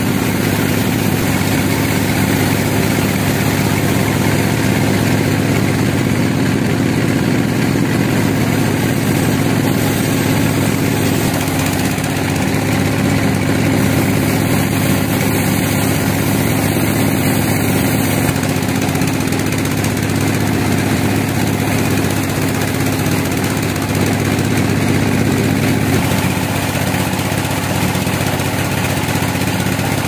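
Large band sawmill running as it cuts through a big log, a loud steady mechanical drone that holds the same pitch throughout.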